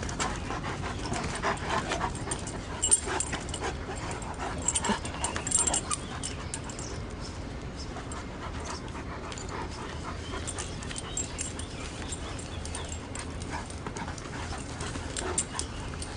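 Two Great Danes playing together: dog noises with scattered short rustles and clicks, busiest in the first six seconds and again near the end.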